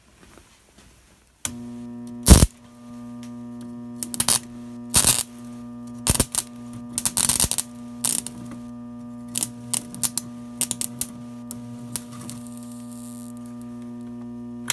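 Modified microwave oven transformer, its secondary rewound as two turns of thick cable, switched on about a second and a half in and humming at mains frequency. A steel nail shorted across its output leads arcs and sparks in loud, irregular crackles and pops as the high current burns through it. The hum cuts off at the very end when the power is switched off.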